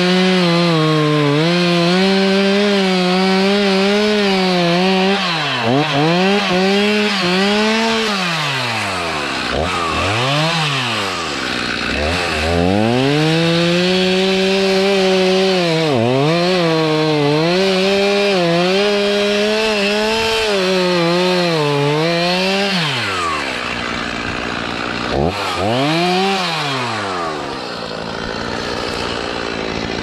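Two-stroke chainsaw at full throttle, cutting into the trunk of a dead birch. The engine eases back to idle and revs up again several times, with the longest drop near the end.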